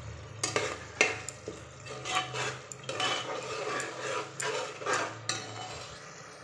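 A steel ladle stirring a thick curry in an aluminium pressure cooker, scraping the bottom and clinking against the pot's sides in a run of short knocks.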